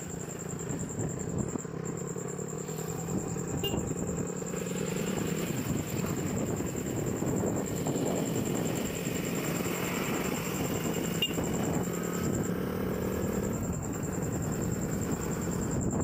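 Motorcycle engine running steadily while riding at road speed, with continuous wind and road noise.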